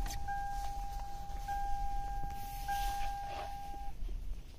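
A 2003 Toyota Camry's dashboard warning chime sounds just after the ignition is switched on with the engine off. It is a steady high tone that repeats in roughly one-second pulses with short breaks, and it stops near the end.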